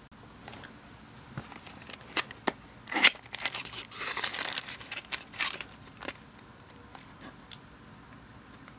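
A small cardboard box being opened and handled: the end flap pulled open and the inner tray slid out, giving a string of sharp clicks, scrapes and rustles, loudest about three seconds in.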